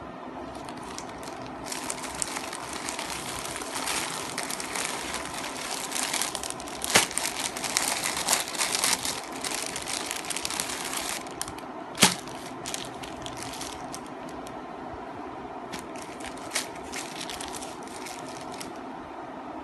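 Parcel packaging being crinkled and torn open by hand: long spells of dense crackling with two sharp cracks, about seven and twelve seconds in, then a shorter spell of crinkling near the end.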